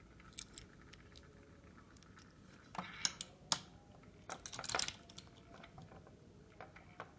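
Quiet handling noises from a small die-cast toy car being turned over in the hands: a few light clicks and taps, and a brief patch of rustling and clicking just past the middle.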